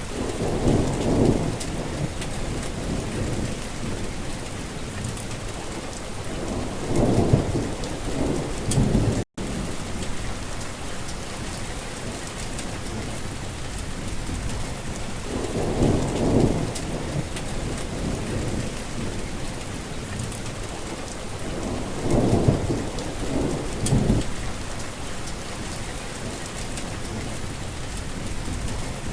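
Heavy rain falling steadily, with thunder rumbling low every several seconds, about five rolls in all. A split-second dropout cuts the sound about nine seconds in.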